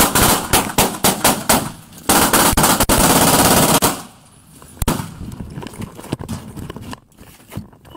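Gunfire during a shootout: a rapid string of shots in the first two seconds, then a dense, unbroken burst of very rapid fire for about two seconds, followed by a few scattered cracks.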